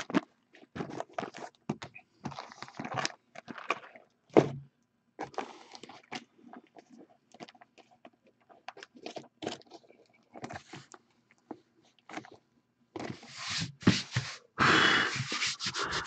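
Shrink-wrapped cardboard hobby boxes of 2016-17 Panini NBA Hoops basketball cards being handled and restacked by hand: irregular scraping, crinkling of the plastic wrap and a few thunks as boxes are set down, with one sharp knock about four seconds in and denser rustling near the end.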